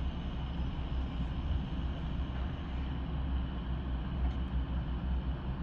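Steady low rumble of heavy drilling-site machinery, with a thin high squeal like a train braking on its tracks, which may be an excavator moving.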